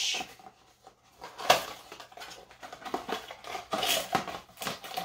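Handling noises as a paddle hairbrush is taken out of its paperboard product box: scrapes, rustles and irregular clicks, with one sharp click about a second and a half in.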